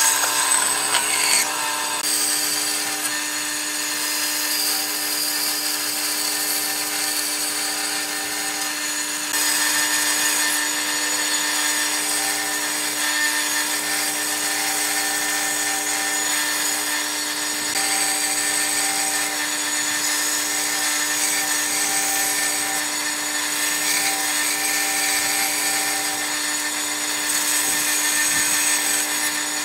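Band saw running with a steady motor hum while its blade cuts through a wooden block, the cutting noise getting louder about ten seconds in.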